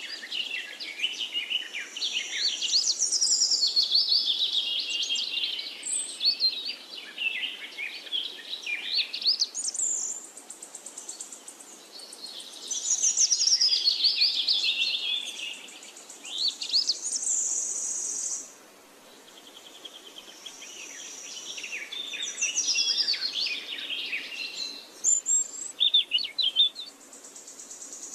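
Birds chirping and trilling in quick, busy phrases, with stretches of a steady high insect-like buzz.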